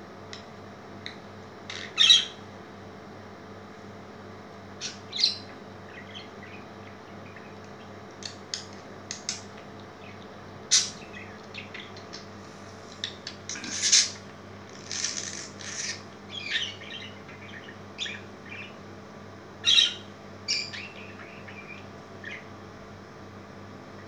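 Budgerigar giving short chirps and squawks at irregular intervals, busiest about halfway through, over a steady low hum.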